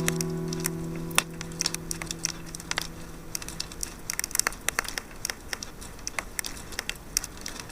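Wood campfire crackling, with irregular sharp pops and snaps, while the last acoustic guitar chord fades out over the first second.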